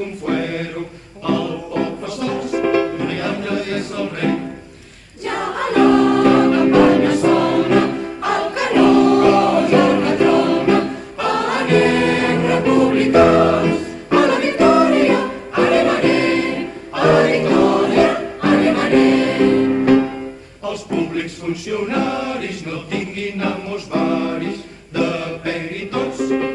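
A choir singing a slow song in long, held chords, phrase after phrase, with short breaths between phrases.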